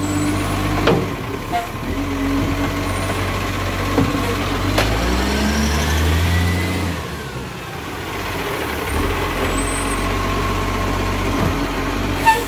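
Diesel engine of an Iveco side-loader garbage truck running, then revving up as the truck pulls forward, with a faint squeak rising and falling with the revs, then easing off. A few short knocks, and a sharp click near the end as it stops at a bin.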